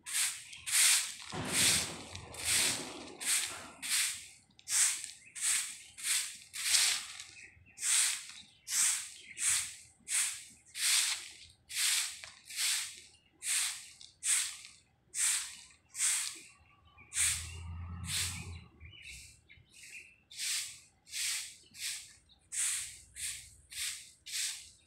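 Long-handled broom sweeping a rough paved surface in regular swishes, about one and a half strokes a second. A low rumble comes in briefly about two seconds in and again around eighteen seconds.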